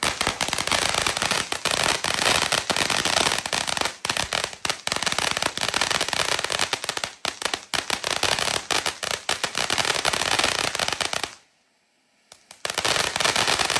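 Firecrackers going off in a dense, rapid string of sharp pops and crackles; the popping breaks off for about a second near the end, then starts again.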